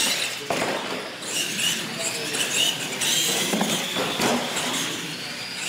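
Radio-controlled monster trucks racing on a concrete floor: motors and gears whining and tires scrubbing, with a few sharp knocks.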